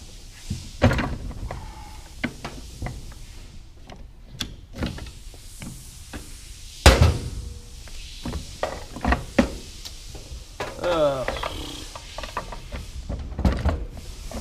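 Metal transmission parts clanking and knocking as a manual gearbox's internals are handled and pulled apart, in a string of separate knocks with the loudest clank about seven seconds in. A short scrape with a sliding pitch comes about eleven seconds in.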